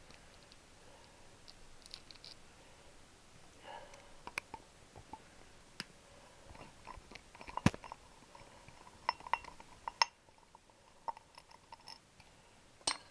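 Light clicks and metallic clinks of hand tools and small screws while a cover is taken off a motorcycle engine, with three sharper knocks: one about halfway through, one about ten seconds in and one near the end.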